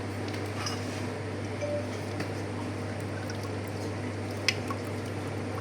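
Steady low machine hum with light liquid trickling and small clinks; one sharp click about four and a half seconds in.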